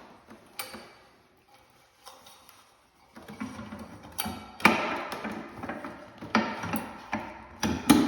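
Wiring being tucked into a ceiling fan's light-kit housing by hand: irregular plastic knocks and clicks with some rustling. The loudest knock comes a little past halfway.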